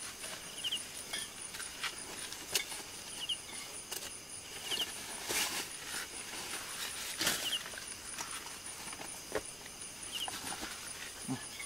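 Crickets chirping on a night hillside: a steady, high, pulsing trill with short chirps in threes recurring every second or so. Scattered clicks and clacks of a metal folding camp table frame being unfolded and set up.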